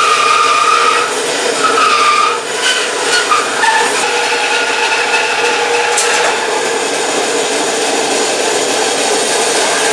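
Bandsaw running with a used, rusty blade, cutting lengthwise through a hard pear-wood log as a steady grinding whine with a few held tones. A single sharp click comes about six seconds in.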